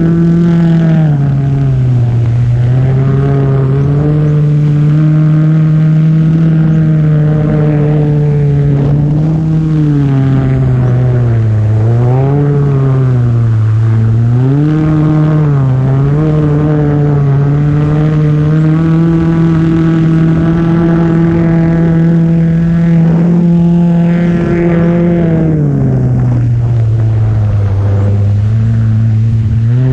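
Kawasaki SX-R 1500 stand-up jet ski's four-stroke inline-four engine running under steady high throttle. Its pitch dips and recovers a few times around the middle as the throttle is eased and reopened, then settles lower near the end.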